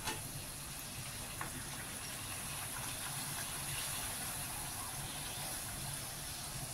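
A methi puri deep-frying in hot oil in a pan: a steady sizzle and bubbling of the oil around the dough.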